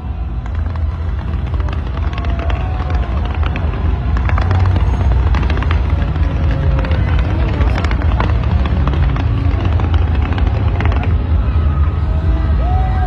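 Large fireworks barrage: many shells bursting in rapid succession, making a continuous deep rumble with sharp bangs and crackles on top. It grows louder over the first few seconds.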